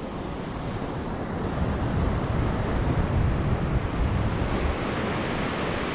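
Ocean surf washing onto a sandy beach: a steady rush of breaking waves that swells in the first half, with wind buffeting the microphone.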